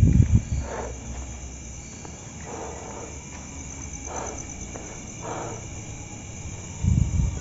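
Crickets chirring steadily at night. Low rumbling thumps at the start and again near the end, with a few faint short sounds in between.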